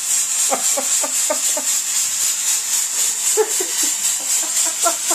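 Stage smoke machine pumping out fog with a steady high hiss.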